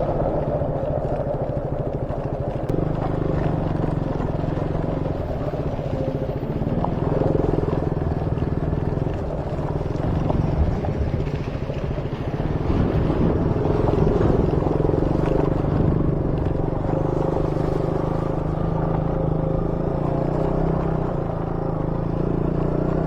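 Motorcycle engine running steadily while under way, a continuous low drone.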